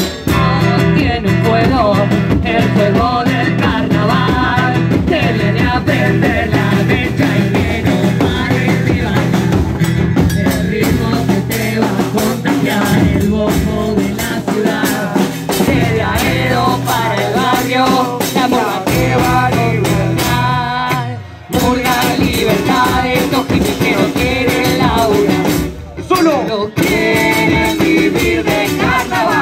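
Upbeat song with singing, guitar, bass and drums, with a brief drop in the music about two thirds of the way through.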